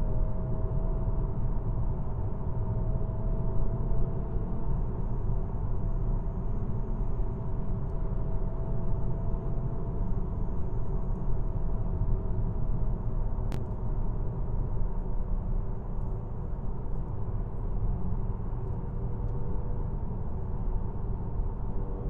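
Mazda MX-30 electric car driving at highway speed, heard from inside the cabin: a steady low rumble of road and wind noise, with a faint tone that slowly rises and then falls.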